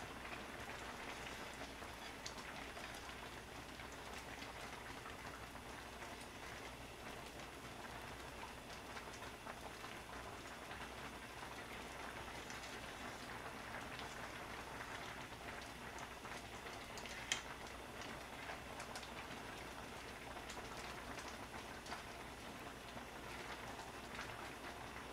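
Clam noodle soup boiling in a wide pan, a steady bubbling crackle like light rain. A few faint clicks, most likely the chopsticks stirring against the pan, with one sharper click past the middle.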